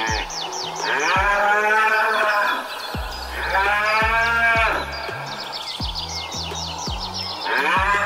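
A cow mooing three times, long calls that rise and fall in pitch, the third starting near the end. Quick high descending bird chirps come between the moos, over a low pulsing beat.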